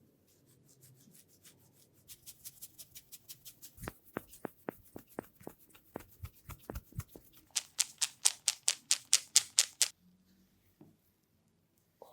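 Rhythmic hand tapping of a head and neck massage: quick, even slaps about five a second. They grow louder and sharper about eight seconds in, then stop about two seconds before the end.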